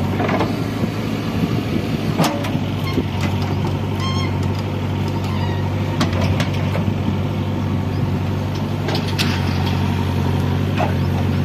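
A vehicle engine running steadily at idle, a low even hum, with a few sharp clicks or knocks over it.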